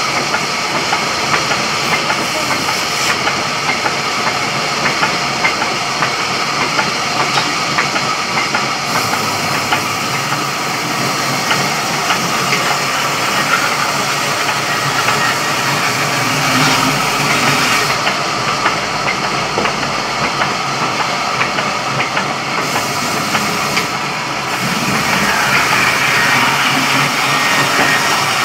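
Sawmill wood-cutting saw and its drive motor running steadily, a loud continuous hiss with fine rapid ticking.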